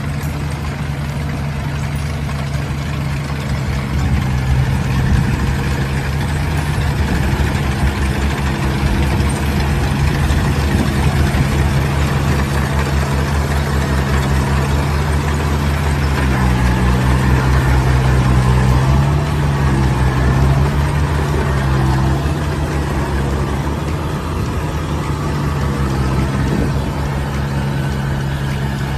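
Kubota combine harvester running steadily while working, its diesel engine hum under the clatter of the cutting and threshing gear. The engine pitch dips and recovers a few times about two-thirds of the way through.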